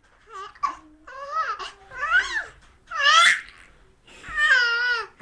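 A 13-week-old baby squealing in a run of about five high-pitched squeaks with pitch rising and falling, the last one longer and wavering. These are a young infant's early voice play.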